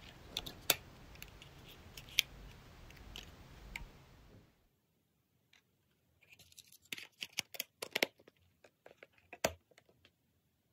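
Plastic clicks and scrapes from a tado° smart thermostat's housing being pried off its back plate and handled. There are a few sharp clicks at first, then a quick run of clicks and scrapes from about six to ten seconds in.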